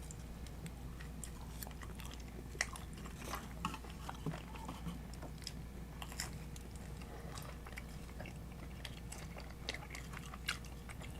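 Close-up eating sounds: people biting and chewing pizza and chicken, with scattered small crunches and wet mouth clicks.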